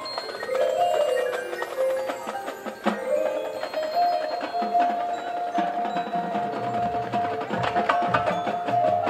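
Marching band music carried by the front ensemble's mallet percussion, struck bell-like and marimba notes, with a long held note coming in about four seconds in and low drum hits near the end.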